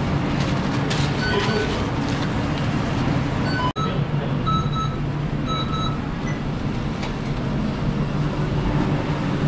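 Busy fast-food kitchen din: a steady hum of fans and cooking equipment, with short high electronic beeps from kitchen timers, two pairs of them about halfway through. The sound cuts out for an instant just before four seconds in.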